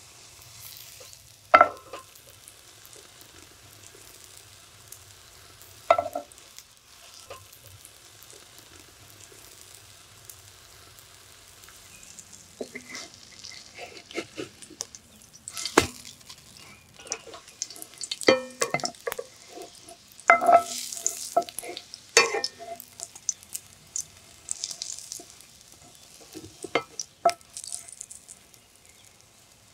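Egg-dipped sandwich frying in oil in a nonstick pan with a faint, steady sizzle. A wooden spatula repeatedly knocks and scrapes against the pan as it turns the sandwich, with the knocks coming thicker in the second half.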